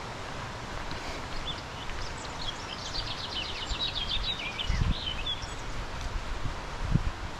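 A small bird singing a fast trill of high chirping notes for about three seconds, over steady outdoor background noise, with a couple of low thuds.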